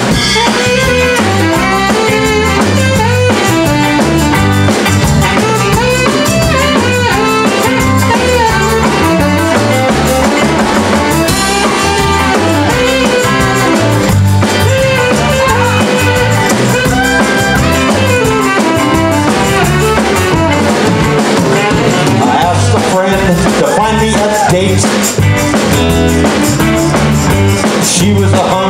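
Live band music with a steady drum beat: accordion, tenor saxophone, tambourine, electric bass and drums playing an up-tempo tune together.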